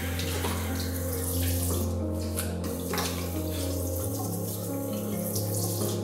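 Water running from a bathroom faucet into a sink, with cupped hands splashing it onto a face. Under it runs a music score of held low notes that shift about four seconds in.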